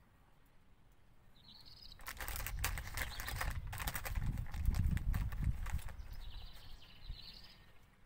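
Plastic packet of wipes crinkling and rustling as a wipe is pulled from it, a dense crackle of fine clicks for a few seconds from about two seconds in. Short bird chirps sound near the end.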